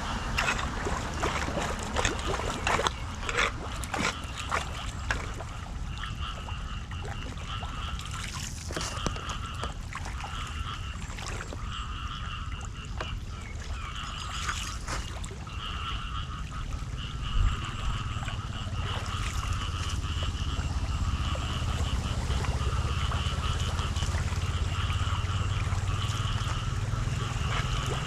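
Flood water trickling and splashing into a street drain, with scattered sharp knocks and scrapes in the first half. A repeating high chirp sounds in the background, and a low rumble grows toward the end.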